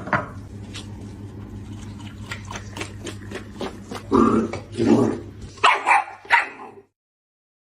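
A dog barking, about five loud barks in quick succession from about four seconds in, over a steady low hum and light ticking.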